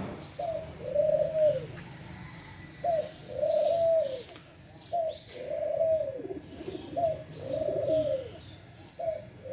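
Teddy pigeon cooing. The coo is a short note followed by a longer arching one, repeated five times about every two seconds.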